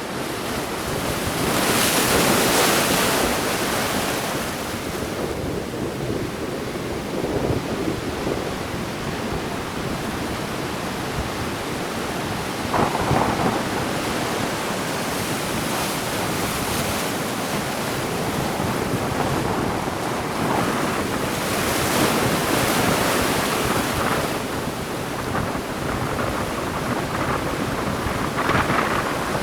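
Sea waves breaking and washing up the shore, with ocean wind rumbling on the microphone. The surf swells into two louder rushes, one a couple of seconds in and one past the middle.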